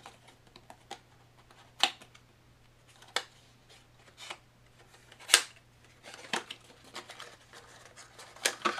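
Hands opening a small cardboard cube box and pulling the cube out of its packaging: scattered sharp clicks and snaps of card, with denser crinkly rustling in the second half.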